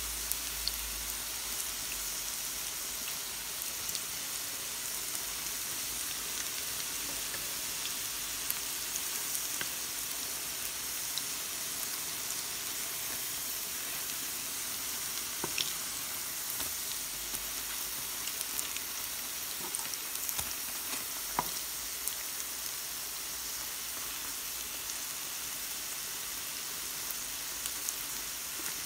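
Courgette and carrot fritters sizzling steadily in shallow oil in a frying pan, with scattered small pops and spits.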